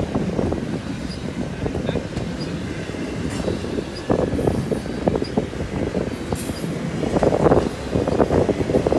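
Double-stack intermodal freight train rolling past close by: steel wheels running on the rails with a steady run of knocks and rattles from the loaded well cars, getting louder again over the last couple of seconds.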